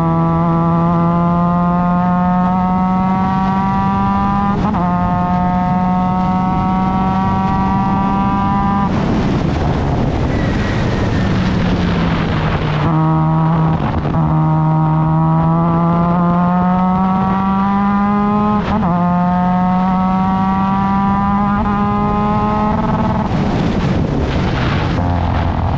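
Formula Mazda's rotary engine at full throttle, heard on board, its pitch climbing steadily with a sharp upshift about 5 s in and again near 19 s. Around 9 s and again near the end the note falls away into a rush of noise as the car lifts and brakes for a corner, then it accelerates again.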